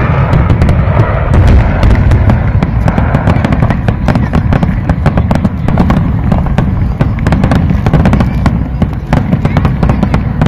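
Aerial fireworks going off in a rapid, continuous barrage of bangs and crackles, many a second.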